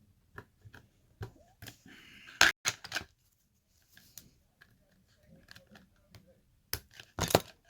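Small metal clicks and taps of a clip remover working the retaining clip off a lock's core, with two louder sharp snaps, one about two and a half seconds in and one near the end.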